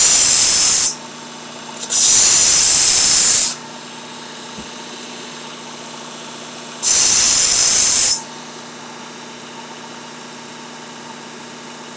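Work Sharp Ken Onion Edition belt sharpener running with a steady motor hum as a chef knife is drawn across its coarse belt three times. Each pass is a loud grinding hiss lasting about a second, and together they raise a burr on the edge.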